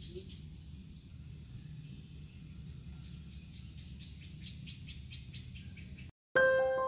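Outdoor ambience: a steady low rumble with a run of quick, high chirps, about four a second, starting about three seconds in. Near the end the sound cuts out and piano music begins.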